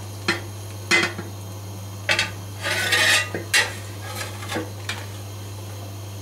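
A metal skimmer clinks and scrapes against a metal plate and a cast-iron kazan as boiled pork knuckles are lifted out of the water. There are sharp clinks about a third of a second and a second in, a longer scrape around three seconds, and a few lighter knocks after.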